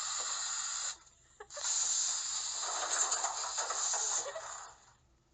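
Two long hisses: the first stops about a second in, and the second starts shortly after, lasts about three seconds and fades out.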